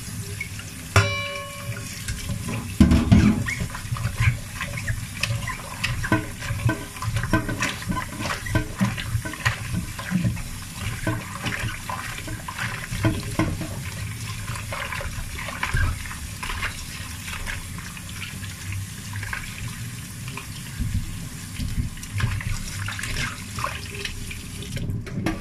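Tap water running into a metal bowl in a stainless steel sink while soaked mushrooms are rubbed and rinsed by hand, with splashing and many small clicks and knocks; a louder knock about three seconds in.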